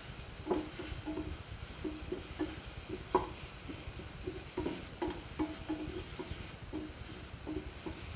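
A spatula stirring and scraping food around a metal pan, with irregular taps and scrapes that make the pan ring briefly, over a faint sizzle of vegetables frying in oil.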